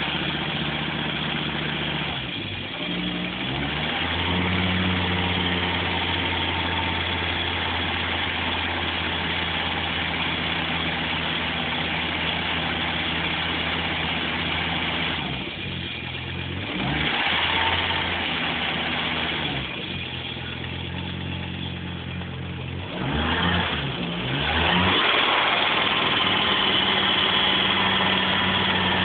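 Audi 3B 2.2-litre turbocharged inline-five 20-valve engine idling and blipped up and back down a few times. It carries the noise the owner is chasing since the rebuild, which gets louder as the engine warms despite new tappets, a good oil pump and correct cam timing.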